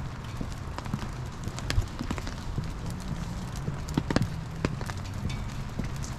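Footsteps knocking on the deck of a pedestrian walking bridge: irregular sharp knocks over a steady low rumble.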